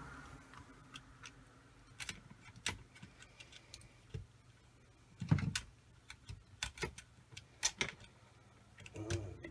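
Scattered small clicks and knocks of hands handling the spark plug cap and ignition lead on a model gasoline engine, with one duller knock about five seconds in. The engine is not running.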